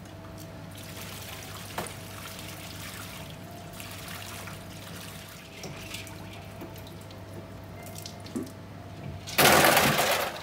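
Kitchen tap running into a stainless steel sink and bowl while cooked udon noodles are rinsed and rubbed by hand in ice water to firm them, with a sharp click about two seconds in. Near the end a much louder gush of water lasts about a second.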